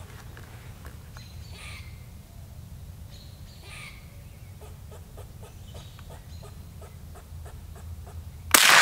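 A single shot from a Marlin Model 60 .22 LR rifle about eight and a half seconds in, a sudden crack that is the loudest thing here and rings off afterwards. Before it, a few short animal calls and a quick run of short clucking calls at about three a second.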